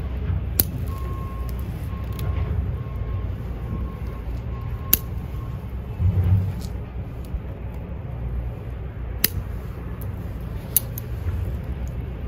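Bonsai scissors cutting the long roots of an apple tree's root ball: about half a dozen sharp snips a second or more apart, over a steady low rumble.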